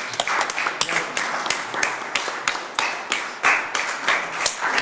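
A small group applauding, with many hand claps overlapping irregularly.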